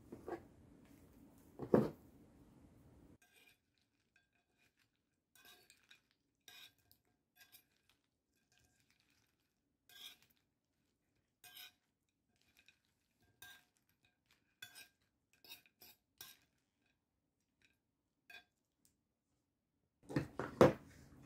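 A metal spoon and fork tossing a crispy pork and fish salad on a porcelain plate: scattered light clinks and scrapes of metal on the plate, with a louder knock about two seconds in.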